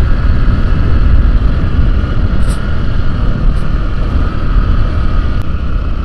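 Motor scooter riding along a road: heavy wind rumble on the microphone over the steady hum of the scooter's engine.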